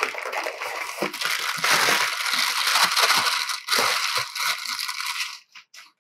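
Thin plastic bag crinkling and rustling with small knocks as a bagged speaker is pulled out of its polystyrene packing; it stops near the end.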